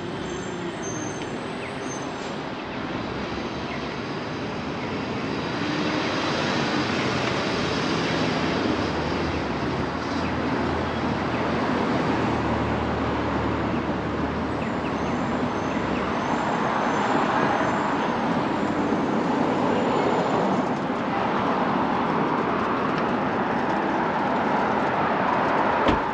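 Steady road traffic noise, with passing vehicles swelling it louder about six seconds in and again later on.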